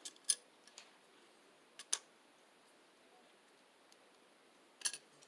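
A few sharp clicks and taps as the cable connector and electrical box are handled. The loudest comes about a third of a second in, two more come close together near two seconds, and a small cluster comes near the end.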